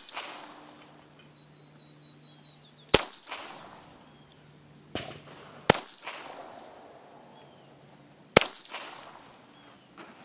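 Three single shots from a High Standard Sport King .22 LR semi-automatic pistol, spaced a little under three seconds apart, each a sharp crack followed by a short echo.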